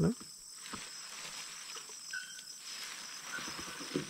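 Steady high-pitched chorus of insects in the vegetation, with a few faint ticks and a brief short note about two seconds in.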